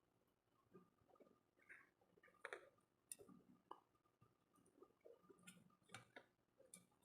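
Near silence with faint, irregular small clicks and taps, the sound of metal tools working on a phone's charging-port board during soldering.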